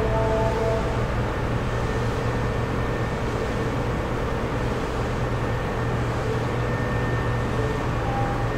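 Hankyu 3300 series electric train running: a steady rumble of wheels on rail and running gear.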